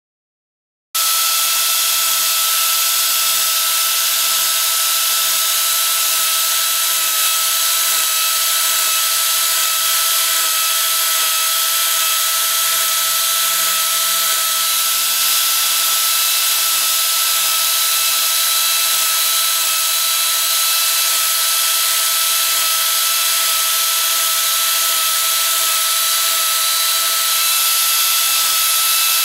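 Angle grinder fitted with an Arbortech Mini Pro carving attachment, running with a steady whine as its cutter carves rows of scalloped texture into a wooden board. The sound comes in suddenly about a second in.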